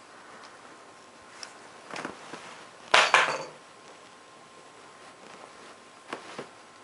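Pug puppy scuffling about on a towel on a wooden floor: scattered light clicks and knocks, the loudest a sharp double knock with a brief rustle about three seconds in.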